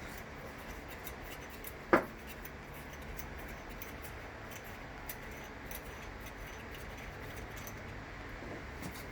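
A hand tool working loose the nut that holds a dimmer on an LED light fixture: one sharp metallic click about two seconds in, then a few faint ticks over a steady low hiss.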